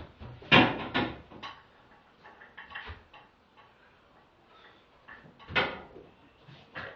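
Loaded barbell clanking and rattling as it is handled in a rack and lifted, with two louder clanks, one about half a second in and one about five and a half seconds in, and lighter knocks between.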